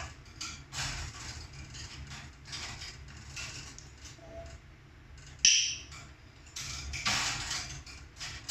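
Irregular mechanical clicking, scraping and creaking, like objects being handled, with one sharp clack about five and a half seconds in.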